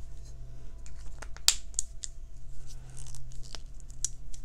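Pens and paper being handled on a desk: a few sharp clicks and light rustles as a pen is put down and supplies are moved, over a faint steady low hum.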